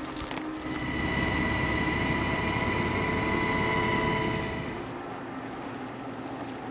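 Helicopter cabin noise: a steady turbine whine with a rumble underneath, swelling up about a second in and fading away after about four and a half seconds.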